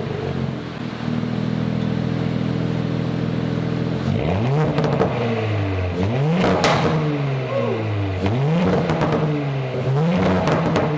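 2018 Audi S4's turbocharged 3.0-litre V6 through an AWE SwitchPath exhaust, idling steadily for about four seconds, then revved in several quick throttle blips that each rise and fall back to idle. There is a sharp crack about halfway through.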